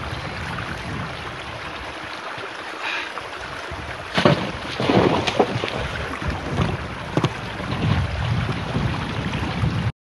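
Wind buffeting the phone's microphone outdoors, then a burst of thumps and scuffs about four seconds in as a man slips and falls on icy ground, with a few more knocks after.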